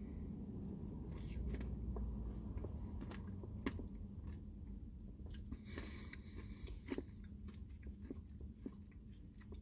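Quiet chewing of a Blizzard with crushed M&M pieces, with scattered small clicks and a brief rustle about six seconds in, over a steady low hum.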